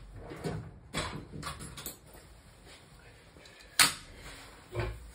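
Scattered knocks and clicks of hand tools being rummaged through and handled while a screwdriver is fetched, with one sharp clack about four seconds in and a duller knock near the end.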